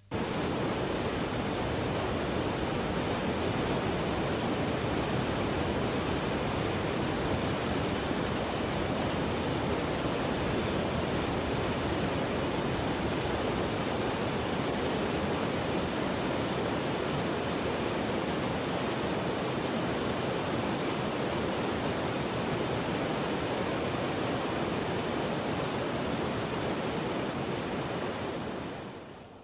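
Waterfall pouring into a rocky pool: a steady rush of falling water that starts abruptly and fades out near the end.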